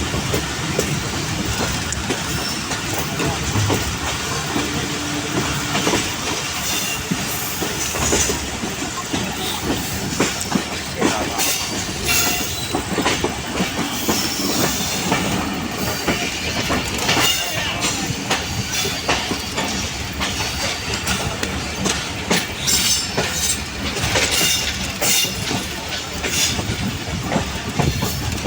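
Pakistan Express passenger train running on the line, its wheels clicking over rail joints in a steady stream, with intermittent high-pitched wheel squeal.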